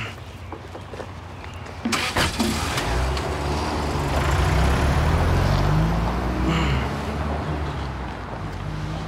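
A car door shuts with a knock about two seconds in, then the car's engine runs and it pulls away, the engine sound swelling as it passes and then easing off.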